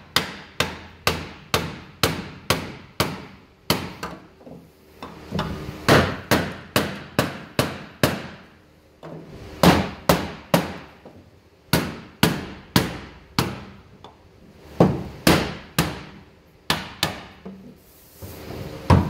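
Hammer blows on a wooden block, driving a polyethylene auger-trough liner end piece down into a corn head's steel auger trough until it snaps into place. The sharp strikes come about two to three a second, in runs with short pauses between them.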